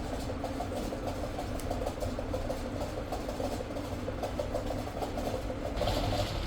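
Factory machinery running steadily, with a fast, fine rattle over a low hum. Near the end a higher hiss joins in.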